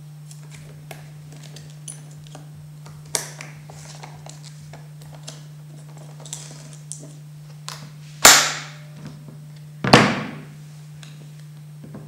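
Handling of an Arriflex 16SR 400 ft coaxial film magazine: light clicks and taps, then two loud thunks about a second and a half apart as its lid is fitted and pressed shut. A steady low hum runs underneath.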